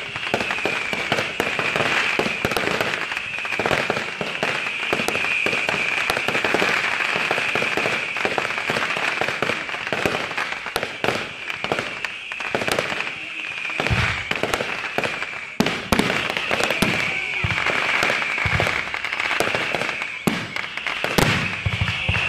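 Fireworks display: dense, rapid crackling and popping from spark-spraying ground fountains over a steady high-pitched hiss, with several deeper thumps in the second half.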